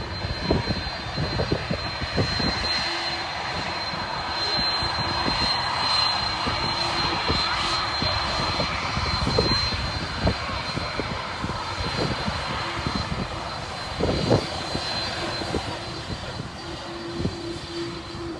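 Airbus A330 twin jet engines at takeoff power: a steady, dense rushing noise with a thin high whine held throughout.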